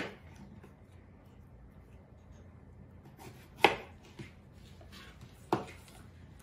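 Kitchen knife slicing an apple on a plastic cutting board: a few sharp knocks of the blade against the board, the loudest a little past halfway and another near the end.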